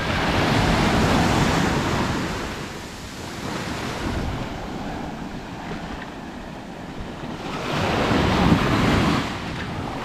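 Small ocean waves breaking and washing up the sand in the shallows. The surf surges loudest at the start, eases off through the middle, and surges again about eight seconds in.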